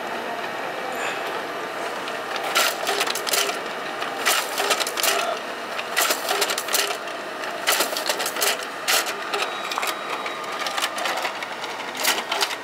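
Canon imageRUNNER ADVANCE colour copier running a stapling job: a steady mechanical whir, and from about two and a half seconds in a run of sharp clacks as the inner finisher staples the sets along the side and pushes them out into its tray.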